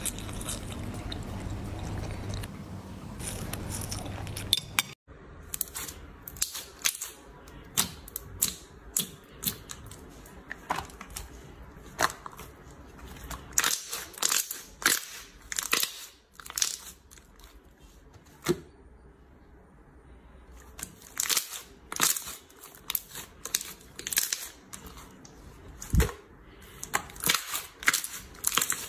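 Slime being squished and poked by hand, giving irregular sharp pops and crackles. The sound cuts off abruptly about five seconds in and then goes on with more widely spaced pops.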